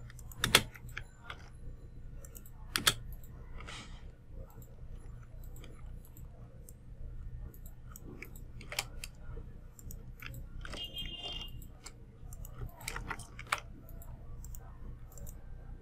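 Sparse, sharp clicks of a computer mouse and keyboard as text is selected and pasted, about five spread-out clicks over a steady low hum. A brief high squeak comes about eleven seconds in.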